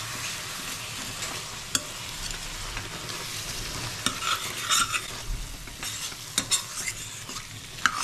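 Spice paste and potatoes sizzling in a stainless steel kadai as a steel spatula stirs and scrapes through them, with a few sharp clinks of metal on metal. The masala is being fried down and stirred without stopping so the cashew-thickened paste doesn't catch on the bottom.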